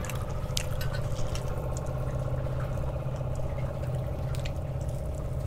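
A steady low hum with a second, higher tone held over it, and a few faint clicks from food being picked off a plate by hand and eaten.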